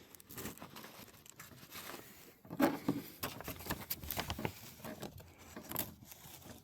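Light rustling and scattered small taps from handling a paper target while a scoring plug is pushed into a pellet hole to check whether the shot breaks the line.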